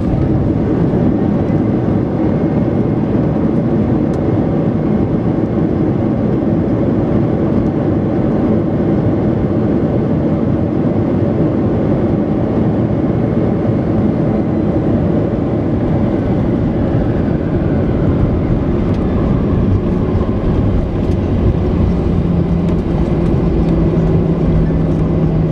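Airbus A321 cabin noise beside the wing engine on the ground after landing: a steady, loud rumble of engine and airflow. A faint whine falls in pitch past the middle, and a low steady hum comes in near the end.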